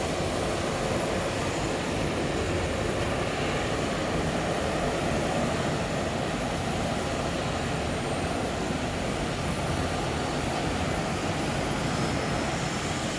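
Steady jet-airliner noise on an airport ramp: a continuous rushing rumble with a faint high whine running through it, and no distinct events.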